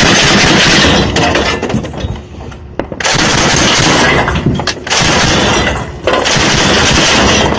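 Belt-fed machine gun firing long bursts of automatic fire. One burst ends about a second in. Fire starts again about three seconds in and runs, with short breaks, until near the end.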